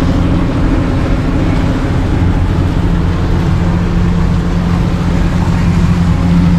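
Suzuki outboard motor running steadily at cruising speed on a moving fishing boat, a constant low hum under a rush of wind and water noise.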